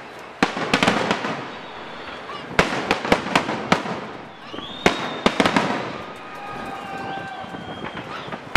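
Fireworks finale: aerial shells bursting in rapid clusters of sharp bangs and crackles. A few steady high tones sound about five seconds in.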